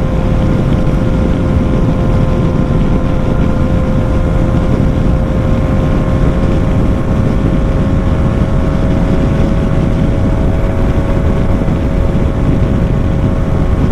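BMW S1000 XR's inline-four engine with a full exhaust system, ridden at a steady speed with an unchanging engine note over heavy wind rumble on the microphone. The rider finds the exhaust louder than ever.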